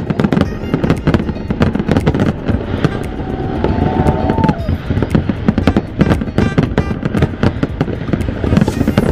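Fireworks display going off in a dense, continuous barrage of booms and crackling reports, one bang after another with no pause.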